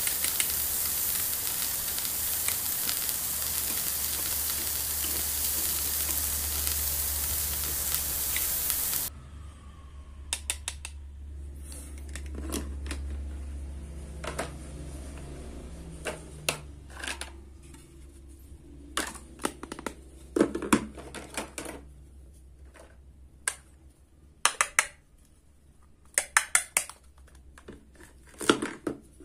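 A steady hiss with a low hum beneath it cuts off suddenly about nine seconds in. The hum fades a little later, and then come scattered light clicks and taps of plastic toy food and kitchen pieces being handled.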